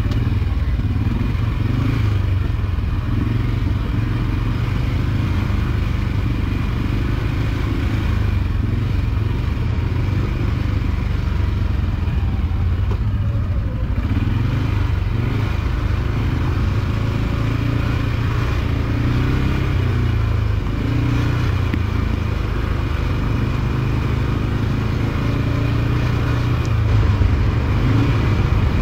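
ATV engine running continuously, its pitch rising and falling as the throttle changes.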